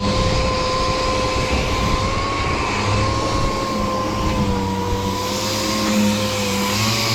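A machine running steadily: a whine whose pitch wavers slightly, over a low hum.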